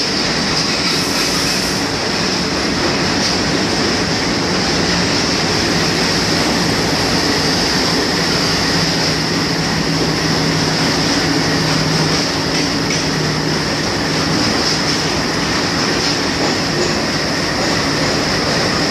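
Train running on the track: steady, loud wheel and rail noise with a constant high hiss over it.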